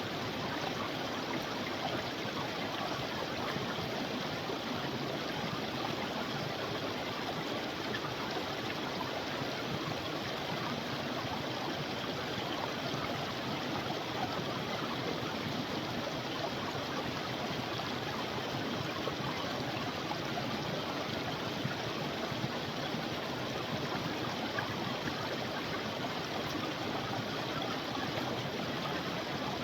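Creek water flowing steadily over rocks, a constant rushing and gurgling.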